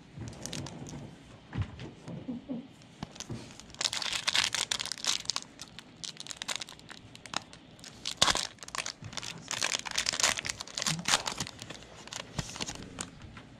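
Panini Prizm basketball card pack wrapper crinkling and tearing in repeated bursts as the pack is opened.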